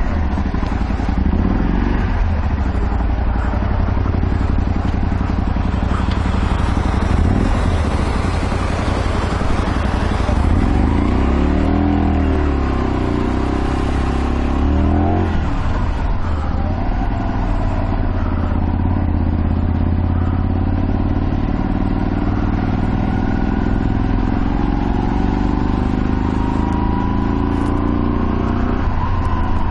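Honda Varadero 125's small V-twin engine running as the motorcycle rides, its revs rising and falling several times and climbing slowly near the end, over a steady rushing noise.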